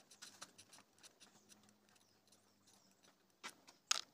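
Faint scattered clicks and light taps of hands handling the metal strainer and valve flap of a water pump foot valve, with one sharper click near the end.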